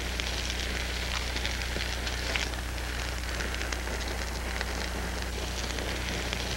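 Fruit in rum and molasses sizzling and crackling steadily in a hot skillet while the rum flames off.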